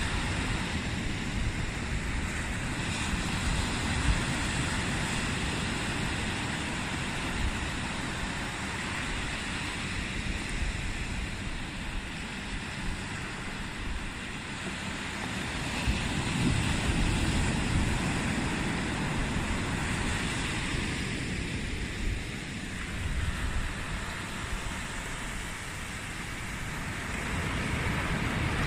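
Small surf breaking and washing up a sandy beach: a steady rushing wash that swells louder about halfway through and again near the end.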